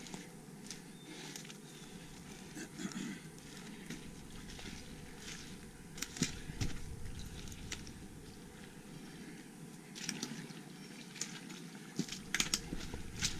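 Irregular footsteps crunching and crackling over leaf litter, twigs and rock on a forest floor, with scattered sharp clicks and knocks, more of them near the end.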